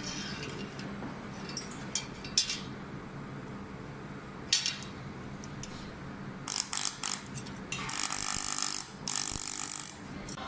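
Laser welding on thin galvanized steel sheet: a few brief sizzling tacks, then two louder, steadier weld passes of about a second each near the end, each with a high whistle. A steady machine hum runs underneath.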